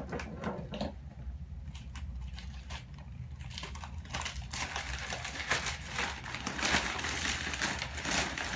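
Packing material crinkling and crumpling as hands unpack a shipping box of orchids, sparse at first and busier from about four seconds in.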